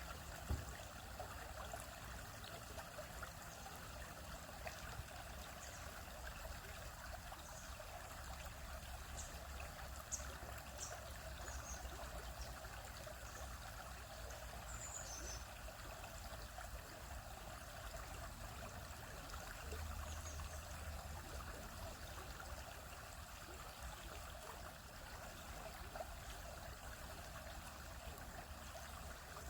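A stream flowing across rocks: a steady, even rushing and trickling of water.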